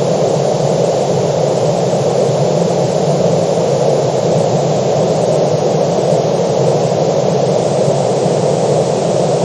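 Steady, unbroken rushing noise at an even level, deep rather than hissy, with no distinct events.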